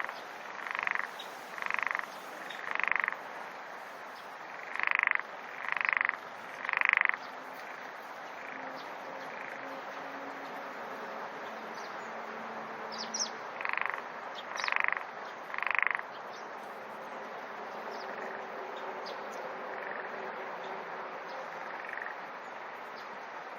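Frogs calling over a steady background chorus, one frog close by giving loud croaks in runs of three, about one a second; three such runs, the last about midway through.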